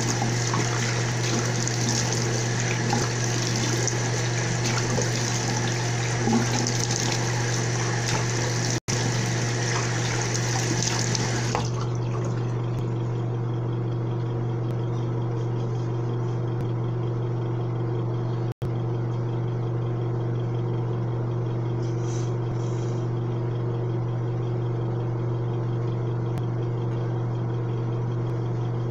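Bathroom sink faucet running while cold water is splashed onto a face, an even rushing sound with a steady low hum under it. About twelve seconds in the rush turns duller and steadier.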